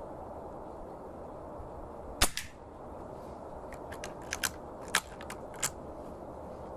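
An air rifle fires once, a sharp crack about two seconds in, followed a few seconds later by a scatter of lighter clicks.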